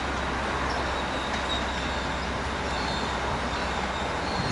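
MBTA commuter rail train approaching, cab car leading: a steady running noise of the train with a low hum underneath.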